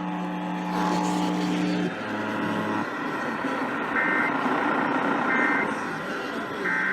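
Emergency Alert System end-of-message tones: three short two-tone data bursts about 1.3 seconds apart, marking the close of the required monthly test. They come after a couple of seconds of steady held tones, over a noisy background.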